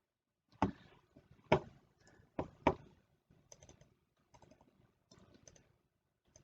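Clicks at a computer: four sharp clicks in the first three seconds, then a run of lighter taps.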